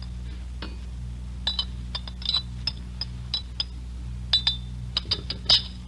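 Radio-drama sound effect of a spoon clinking in a china coffee cup: about fifteen light, irregular clinks, each with a short ring. A steady low mains hum from the old recording runs underneath.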